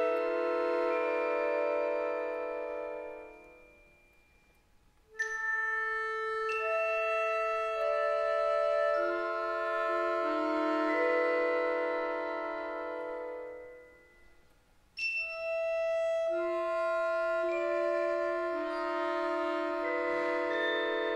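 Accordion and mallet percussion playing slow, sustained chords of contemporary classical music. The sound fades almost to nothing twice, and each time a new phrase comes in with a sharp struck attack.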